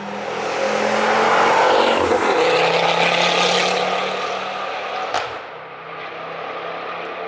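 A Ford Focus hatchback passing at speed on the circuit. Its engine note grows louder as it approaches, drops in pitch as it goes by about two seconds in, then fades away. A single sharp crack comes about five seconds in.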